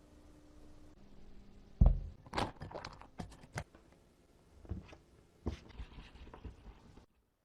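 Kitchen food-preparation handling sounds: a heavy thump about two seconds in, then a quick run of sharp clicks, knocks and crinkles, and a few scattered knocks after that.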